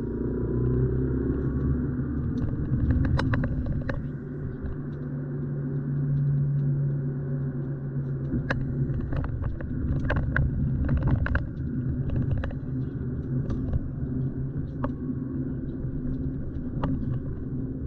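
Car driving: a steady low engine and road rumble, with scattered short sharp clicks and knocks throughout.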